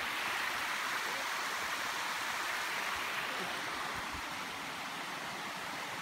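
Shallow stream rushing and cascading over rock slabs, a steady even rush of water.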